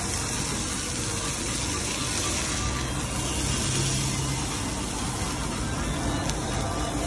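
Mozzarella-stuffed kofte patties sizzling steadily on a hot flat-top griddle, a constant hiss.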